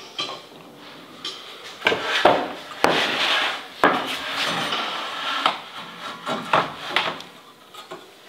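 A wooden chair-seat blank set down, slid and knocked against a plywood table-saw sled and its pins: a string of sharp wooden knocks with scraping between them.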